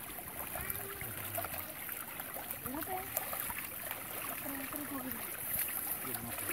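Shallow muddy water sloshing and trickling around a cloth fishing net as it is drawn through a paddy-field channel, with faint voices in the background.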